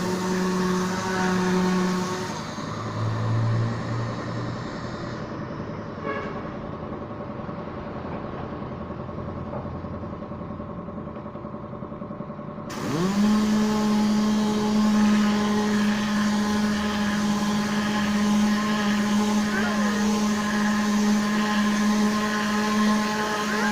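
Electric motor of compressor-fed Tornador Z-020 cleaning gear humming steadily with air hiss. After a couple of seconds it drops lower and quieter. About thirteen seconds in it spins up with a rising whine and then runs steadily and louder.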